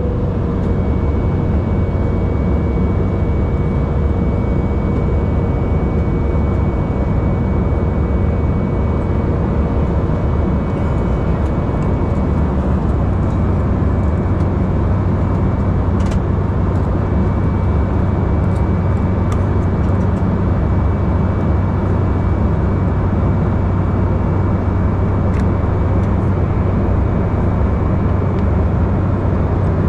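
Steady cabin noise of an Embraer E195 in flight: a low drone of its turbofan engines and the airflow around the fuselage, heard from inside the passenger cabin. A faint steady tone fades out about a third of the way through.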